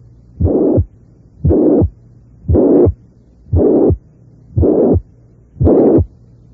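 Recorded heart sounds of mitral regurgitation: six slow, regular beats, each a loud systolic murmur filling the gap between the first and second heart sounds. The murmur is loud enough to sound somewhat harsh rather than purely blowing.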